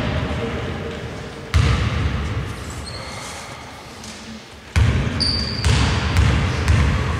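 A basketball being bounced on an indoor court floor before a free throw, each bounce a low thud that rings on in the large hall. There is one bounce about a second and a half in, then three closer together in the last few seconds.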